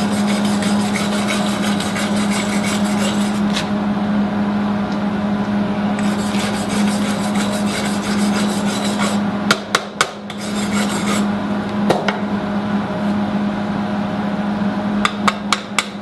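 Wire-feed welder arc crackling and sputtering in runs over the welder's steady hum. The crackle breaks off a few times, with several short sharp pops near the end as the arc is struck in brief bursts. The weld is sputtering rather than running smoothly, and the welder is not yet set right.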